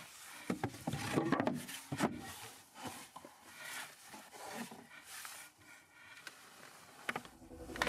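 A plywood lid being laid over a wooden storage chest and fitted into place: scattered light knocks and wood rubbing on wood, quiet.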